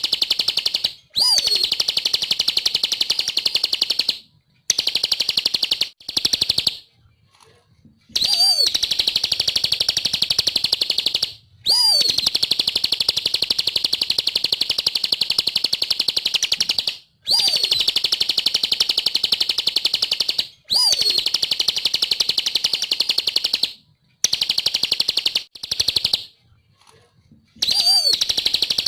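Bar-winged prinia (ciblek) in full, persistent song: long bouts of a fast, high, rapidly repeated trill, each bout opening with a sharp swooping note, broken by short pauses every few seconds.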